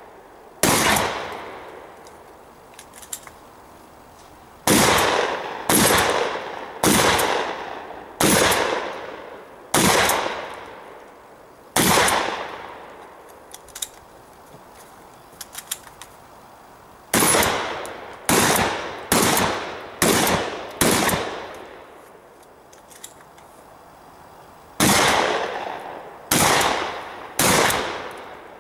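Shotgun fired in quick strings: about fifteen shots in clusters, the fastest roughly one a second, each trailing off in a long echo. Faint small clicks fall in the pauses between strings.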